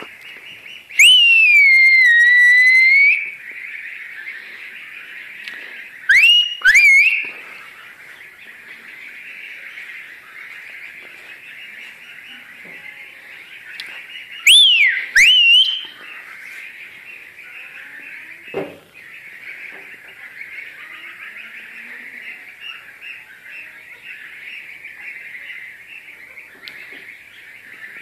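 Loud whistling aimed at geese, in three bouts. The first, about a second in, is one long whistle that dips and rises again. Then come two short rising whistles, and near the middle two more. Under them runs a steady high-pitched background chatter.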